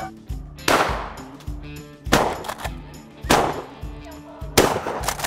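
Four shotgun shots, each a sharp report with a short fading tail, about a second and a half apart. Background music with a steady beat runs underneath.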